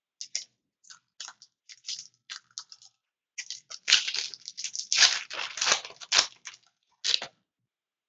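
A stack of trading cards being handled and shuffled by hand: irregular crisp flicks and rustles, sparse at first, then thicker and louder from about halfway through.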